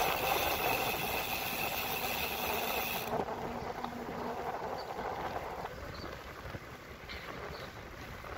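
Wind rushing and tyre noise from a bicycle in motion, an even rushing sound. Over the first three seconds a brighter steady hiss sits on top and cuts off suddenly, leaving a duller rush that slowly fades.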